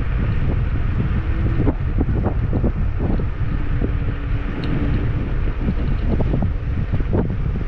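Wind buffeting the microphone of a moving electric scooter, over a constant low rumble, with frequent short knocks and rattles from bumps in the path.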